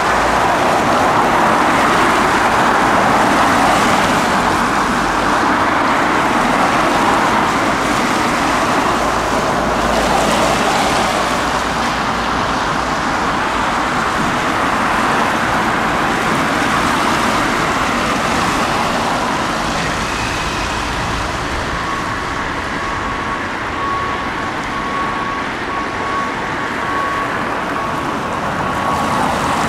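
Road traffic passing on a wet road, a steady rushing hiss of tyres and engines. From about two-thirds of the way in, a faint high tone beeps on and off.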